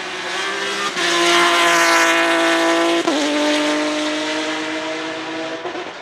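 Off-road rally buggy engine running hard at full throttle as the car passes, with a brief break in the note about three seconds in, like a gear change. The note falls slightly and fades near the end as the car goes away.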